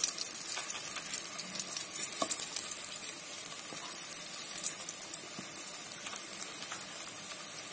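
Rice-flour-coated slices of boiled taro (arbi) shallow-frying in hot oil in a pan: a steady sizzle with small crackling pops.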